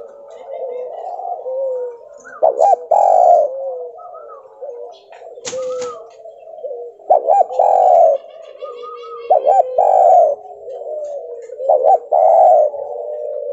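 Spotted dove (tekukur) cooing: a repeated phrase of a couple of short, clipped notes followed by a longer coo, about every two seconds, over fainter cooing in the background.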